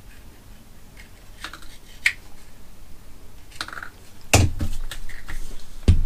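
Small scissors snipping through heat shrink tubing, a few light clicks, then louder thumps and knocks on the workbench as tools are handled and set down.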